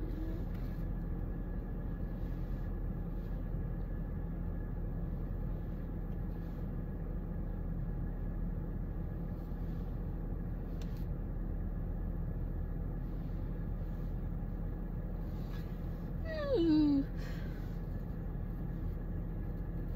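Steady low hum and rumble inside a parked car's cabin. A short falling vocal sound comes a little over three quarters of the way in.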